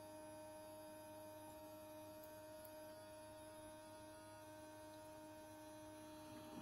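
Near silence with a faint, steady hum made of a few even tones.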